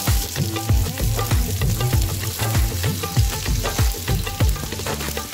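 Pointed gourds sizzling in hot oil in an iron tawa while a steel spoon turns them over, with scrapes and taps of metal on the pan. Background music with a steady beat plays underneath.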